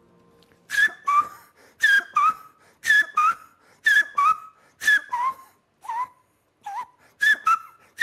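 A man imitates the call of the chiricoé, a Paraguayan bird he also calls caracolero, by whistling with his hand at his lips. The call is a repeated two-note whistle, a higher note dropping to a lower one, about once a second.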